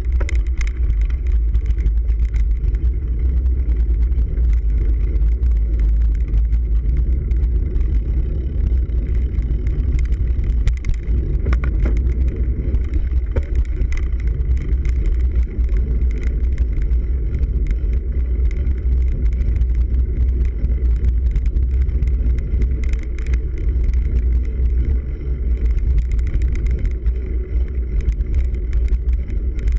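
Cyclocross bike ridden over a dirt and leaf-covered trail, heard through a handlebar-mounted camera: a steady, loud low rumble of wind and tyre vibration on the microphone, with scattered clicks and knocks.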